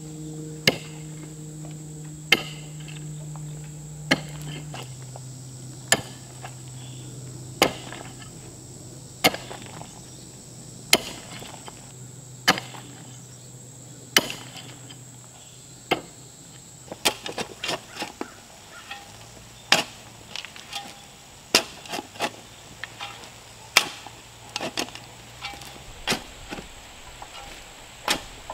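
A long-handled digging tool striking hard, rocky clay soil: about ten evenly spaced blows, one every second and a half or so. From about two-thirds of the way in come quicker, irregular knocks and scrapes as a shovel digs out the loosened dirt.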